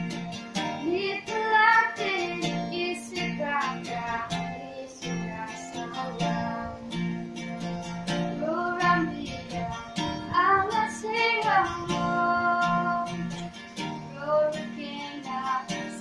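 A girl sings a folk song solo, accompanying herself on a strummed acoustic guitar with a steady rhythm.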